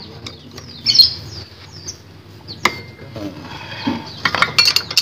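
Metal clinks and taps of a wrench and a clutch-holder bar on a scooter's rear clutch nut: one sharp ringing clink near the middle and a cluster of clicks near the end. A bird chirps about a second in.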